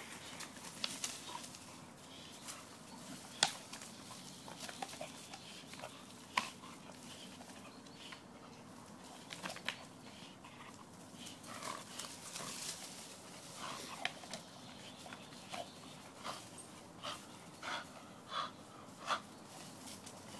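A dog playing tug with a rope toy hung from a tree, panting in short breaths, with scattered sharp clicks and scuffs as it jumps and pulls.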